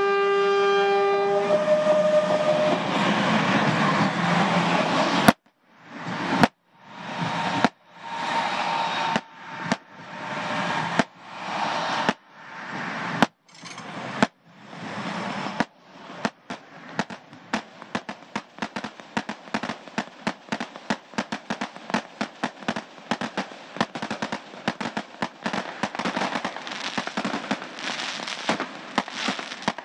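A train horn sounds briefly over the rush of the arriving train. Then, from about five seconds in, come loud bursts with short breaks between them, turning into a dense, continuous crackling of firecrackers.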